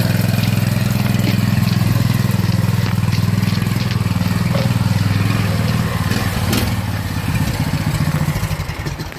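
Custom mini bike's small engine with a custom exhaust, running steadily at a loud, even note, then dying away near the end.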